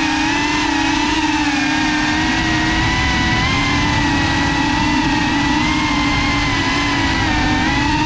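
FPV quadcopter's electric motors and propellers whining steadily, the pitch drifting slightly up and down with throttle, over a rushing noise.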